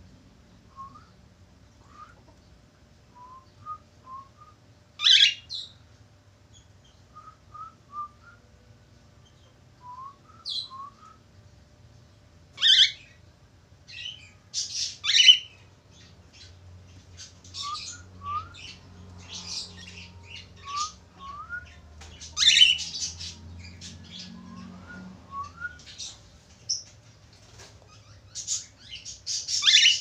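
Cockatiel calling: soft, short rising chirps every second or so, broken by loud, harsh screeching calls every few seconds that come more often in the second half.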